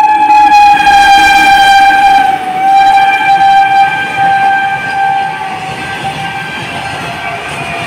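Electric locomotive's horn sounding continuously as a freight train passes at speed, its pitch dropping about two seconds in as the locomotive goes by, then fading. The rumble and clatter of the goods wagons runs underneath.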